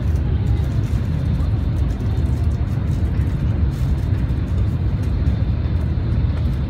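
Steady deep rumble and rush of a Tokaido Shinkansen N700A bullet train at high speed, heard from inside the passenger cabin.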